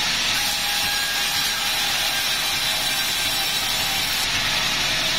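Sawmill blade cutting steadily through a wadang log, a continuous hissing saw noise with the mill's motor running underneath.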